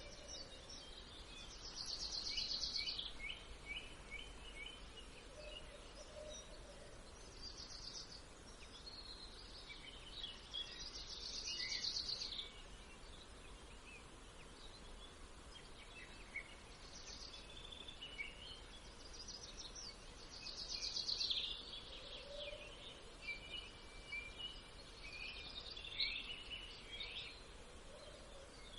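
Birds singing outdoors: rapid trilling song phrases repeated every few seconds, with short chirps between them, over a steady low background hiss.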